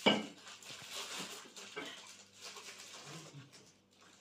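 A ceramic lid knocks once sharply on a glazed earthenware pickling jar, followed by faint handling rustles and footsteps.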